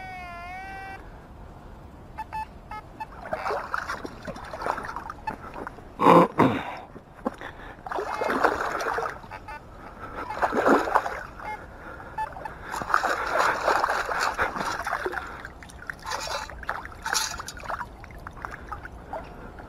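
Lake water sloshing and splashing in repeated swishes as the detector coil and scoop are swept and worked through shallow, muddy water, with one loud knock about six seconds in. A short warbling tone from the metal detector sounds at the very start.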